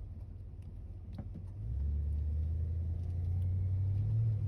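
Dodge Ram Van's 318 V8 engine and road rumble heard from inside the cab as the van pulls away. The engine grows louder about two seconds in as it accelerates.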